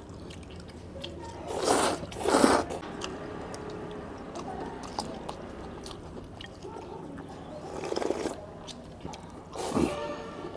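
A person eating hele noodles in big mouthfuls: chewing, broken by four short, loud noisy slurps, two close together about two seconds in and two more near the end.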